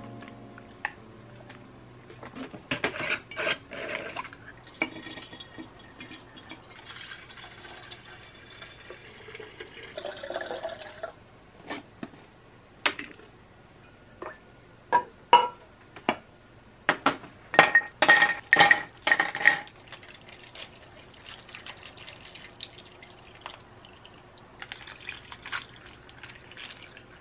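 Glass kitchenware and liquid being handled: a drink poured into a glass pitcher, sharp clinks against glass, then a loud run of ringing glass clinks midway. Near the end comes a softer pour of liquid over ice in a glass tumbler.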